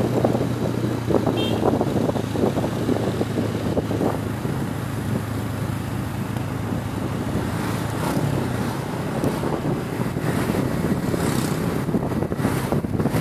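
Motor scooter running at a steady cruise, its low engine hum mixed with wind and road noise rushing over the microphone.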